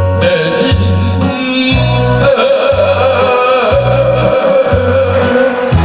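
A man singing a Korean trot song into a microphone over a recorded backing track with a steady bass and drum beat, holding one long note with vibrato from about two seconds in.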